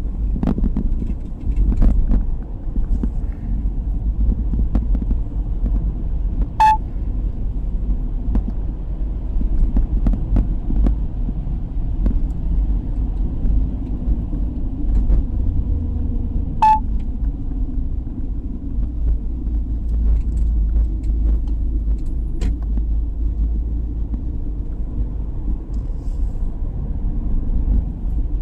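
Car on the move, heard from inside: a steady low rumble of engine and road noise. Two short electronic beeps sound about ten seconds apart.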